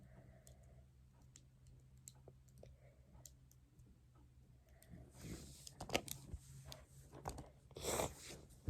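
Small plastic fidget toys being handled: faint scattered clicks, then from about five seconds in louder rustling and clattering as toys are picked up and moved.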